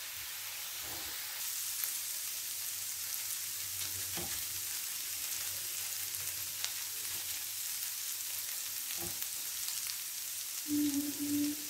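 Ginger-garlic paste frying in hot oil on a flat nonstick tawa, a steady sizzle, stirred now and then with a silicone spatula as the paste browns.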